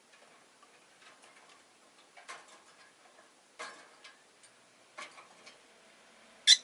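Rosy-faced lovebird at close range: a few sharp clicks about a second and a half apart, then one short, loud, high chirp near the end.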